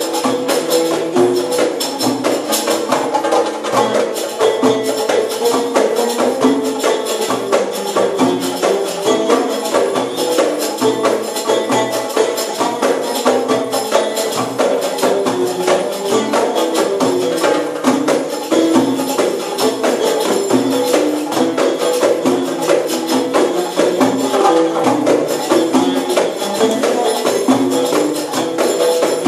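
Live Middle Eastern-style ensemble music: a plucked lute plays a stepping melody over jingling frame drums and hand-drum strokes in a quick, steady rhythm.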